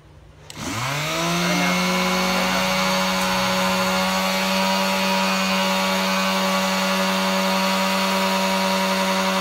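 Small 100 V, 130 W electric detail sander running free. Its motor spins up within about a second to a steady, even hum and holds there, then winds down as it is switched off near the end.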